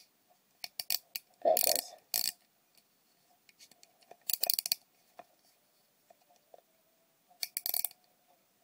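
Plastic wristwatch being handled, its face worked in and out of its plastic shell: scattered clicks and rattles of plastic in short clusters, the loudest about a second and a half in, others around four seconds and near the end.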